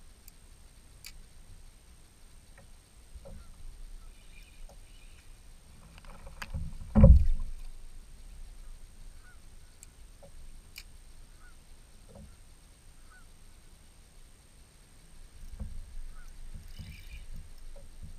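Knocks and handling sounds on a plastic sit-on-top fishing kayak as a spinning reel is worked, with one loud thump about seven seconds in.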